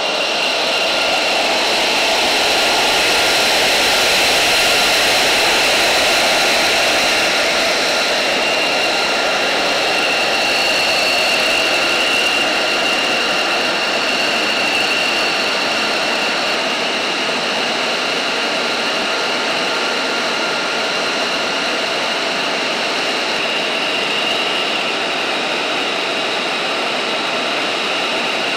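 F-35A Lightning II's Pratt & Whitney F135 turbofan idling on the ground: a loud, steady jet whine with several high steady tones over the rushing noise, swelling a little a few seconds in.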